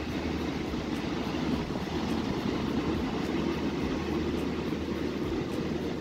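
Ocean waves breaking on a sandy beach, heard as a steady low rumble of surf.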